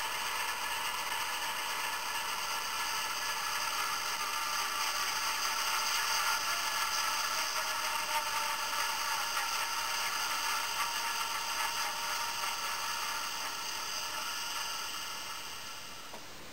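Diesel locomotive engine sound played by an ESU LokSound decoder through the model's small 23 mm speaker. It runs steadily, thin and without bass, swelling a little midway and dying away near the end to a faint hiss.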